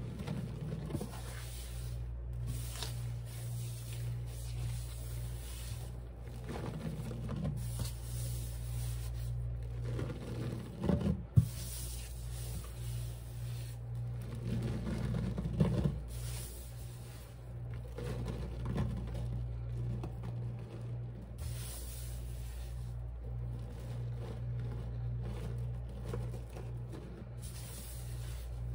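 Sponge rubbing and scraping through cleaning powder in irregular strokes, with a sharp click about eleven seconds in, over a steady low hum.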